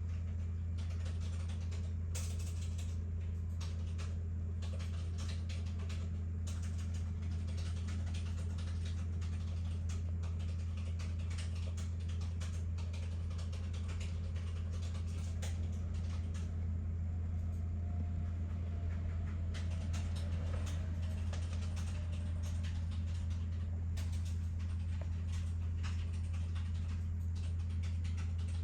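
A steady low hum with many small irregular clicks and ticks over it.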